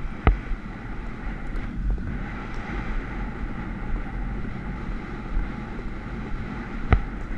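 Wind rushing over a helmet-mounted camera microphone as a Hanoverian horse gallops, with the rumble of its hoofbeats on a dirt track underneath. A sharp click comes just after the start and another near the end.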